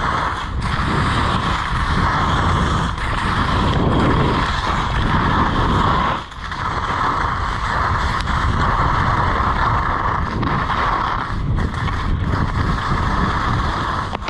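Skis sliding and scraping on groomed snow during a downhill run, with wind rushing over the camera's microphone, easing briefly about six seconds in.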